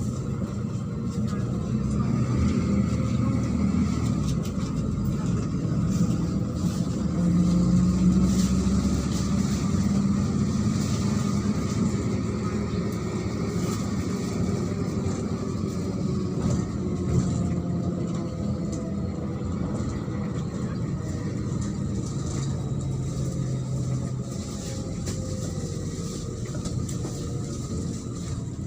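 Neman city bus driving, heard from inside the passenger cabin: the engine runs under road rumble, its note rising and falling slowly as the bus pulls and eases off.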